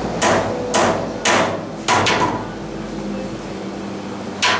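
Steel hammer striking a stud in a 1959 GMC exhaust manifold section clamped in a vise: four sharp metallic blows about half a second apart, each with a short ring, then one more after a pause of about two and a half seconds.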